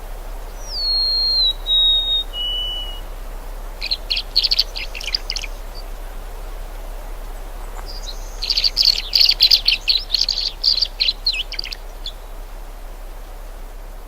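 Songbirds singing: three clear whistled notes, each lower than the last, then two bursts of rapid twittering trills. A steady background rush runs underneath.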